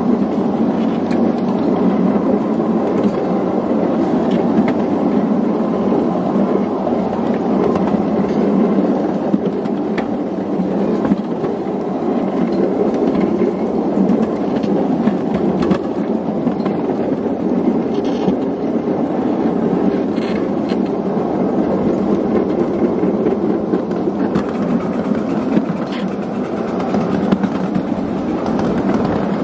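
Ridable miniature railway train rolling along the track, its steel wheels giving a steady rumble with a few faint clicks over rail joints.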